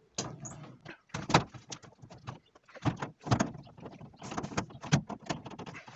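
Hand ratchet with a number 3 Phillips bit clicking in short, irregular runs of sharp clicks as it backs out screws.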